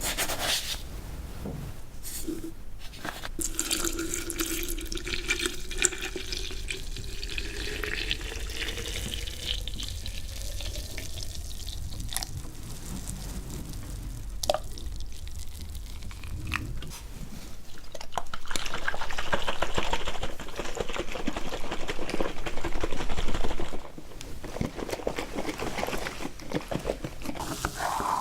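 Liquid poured into a glass, the pitch of the pour rising steadily as the glass fills. Later come a few sharp clicks and a louder stretch of quick, repeated scraping and rustling.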